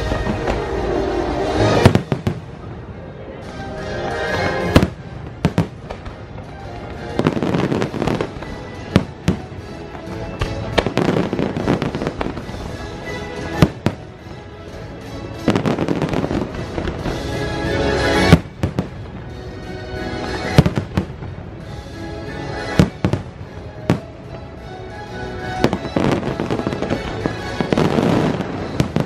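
Aerial fireworks bursting in sharp, loud bangs every few seconds, some in quick pairs, over continuous music.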